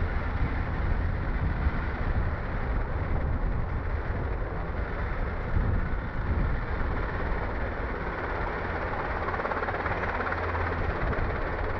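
Helicopter in flight, its rotor and engine making a steady noise with a low rumble.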